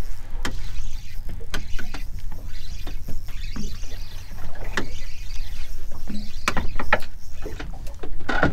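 A steady low rumble with scattered sharp clicks and knocks throughout.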